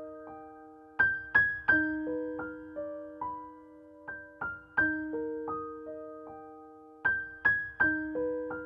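Background music: a gentle piano or electric-piano melody of struck notes that ring out and fade, playing a short phrase that repeats.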